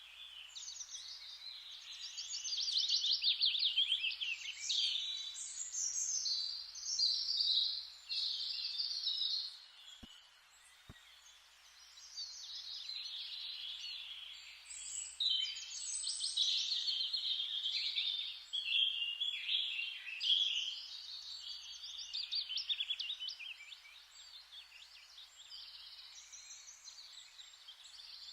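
Birds chirping and singing, many quick overlapping calls and trills, busier at some moments and thinner about a third of the way in.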